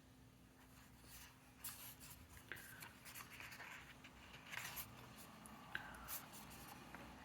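Faint, scattered rustling and light taps of paper and small embellishments being handled and placed on a scrapbook layout.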